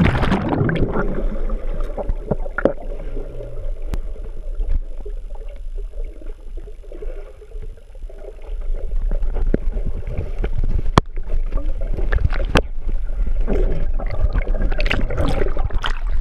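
Muffled underwater water sound heard through a submerged GoPro housing: a steady low rumble and wash with a few sharp knocks, quieter around the middle. Toward the end it grows busier and louder as the camera nears the surface, with sloshing and splashing water.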